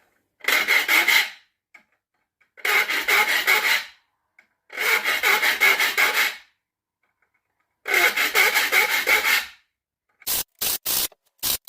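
Triangular saw file rasping across the teeth of a dull tenon saw to sharpen it. Four long strokes of about a second or more each, with a fine rapid chatter inside each, then a quick run of short, sharp strokes near the end.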